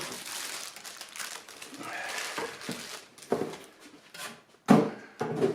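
Packaging rustling and crinkling as engine parts are unpacked and handled, with a few sharp knocks, the loudest a little before the end.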